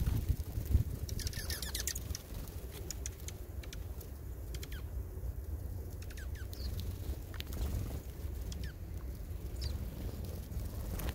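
Small birds chirping: scattered short, high calls that drop in pitch, a cluster of them about a second in, over a steady low rumble.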